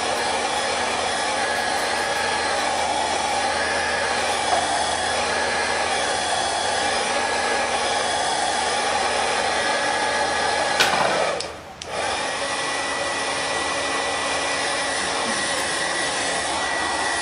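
A steady rushing noise with a faint steady whine in it. It drops out briefly about eleven and a half seconds in, then resumes.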